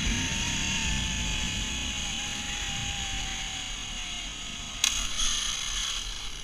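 Zipline trolley pulleys running along the steel cable: a thin whine that slowly drops in pitch as the rider slows, over a steady hiss and wind rumble on the microphone that eases off. About five seconds in there is a single sharp clack, followed by a brief rattle.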